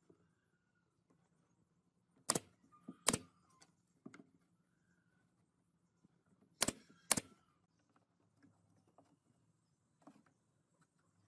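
Pneumatic brad nailer firing four shots in two quick pairs, about two seconds in and again about seven seconds in, driving brads into pine slats. Light knocks of wood being handled between the shots.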